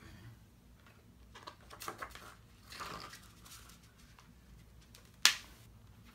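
Pages of a booklet being turned by hand: soft paper rustles and ticks, then one sharp snap about five seconds in.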